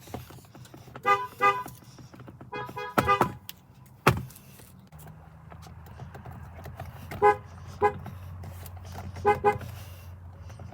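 Car horns honked in short beeps: a pair about a second in, a quick run of several beeps around three seconds, then two more pairs near the end. A sharp click sounds about four seconds in, over a steady low hum.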